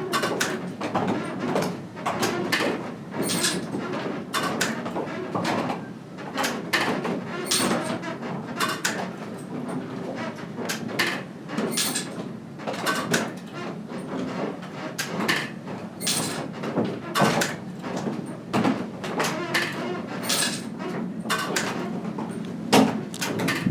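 Factory machinery clattering, with frequent irregular sharp clanks and knocks over a steady mechanical din.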